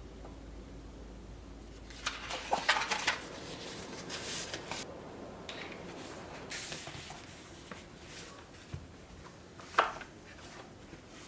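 Dishes and cutlery clinking and clattering as they are handled, with a cluster of knocks a couple of seconds in, a few more midway and a single sharp clink near the end.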